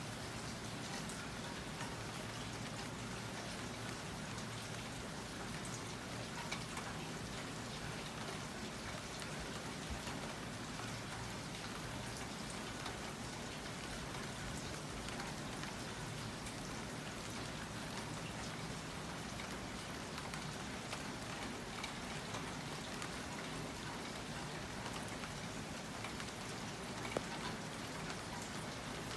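Steady rain falling, with a continuous hiss and scattered drop patters on surfaces.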